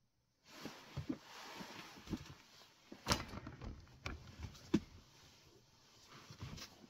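Handling noise: rustling with a series of sharp knocks and clicks as things are moved on a desk, the loudest knock about three seconds in and another near five.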